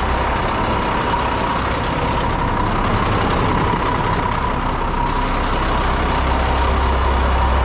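Cement mixer truck's diesel engine running steadily at idle, a constant low rumble with a thin steady whine over it.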